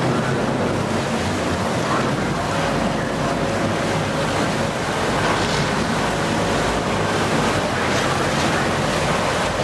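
Sea water churning and splashing alongside a moving boat, with wind buffeting the microphone and a steady low hum underneath.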